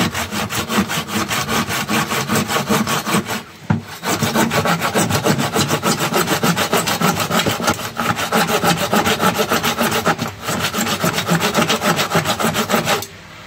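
A thin hand saw blade cutting through a Zanussi washing machine tub in quick, even back-and-forth strokes. The sawing breaks off briefly about three and a half and ten seconds in, and stops near the end.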